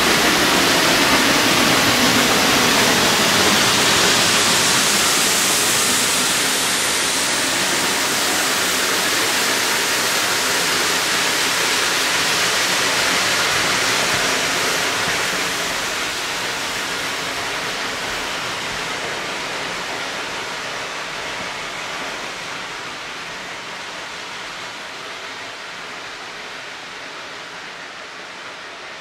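A geared steam logging locomotive hauling a short train past at close range: a dense rush of steam exhaust and running gear. It is loudest while the engine goes by and fades steadily over the second half as the flatcar and caboose roll away.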